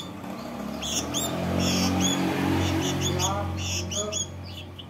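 Sooty-headed bulbul (kutilang) calling with rapid short, sharp chirps, repeated throughout. A low steady hum swells up about a second in and fades away near the end.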